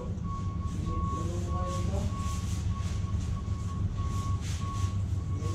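A steady low rumble with a high electronic beep repeating at an even pace throughout.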